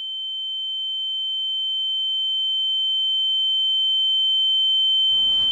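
A steady, high-pitched electronic tone, held without a break and slowly swelling, with a fainter lower tone under it that drops out about five seconds in.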